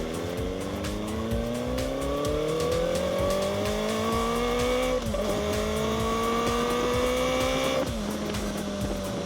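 2024 Kawasaki Ninja ZX-4RR's 399 cc inline-four on its stock exhaust, pulling through the gears: the revs climb for about five seconds, drop at an upshift, climb again, then drop once more near eight seconds and sink slowly.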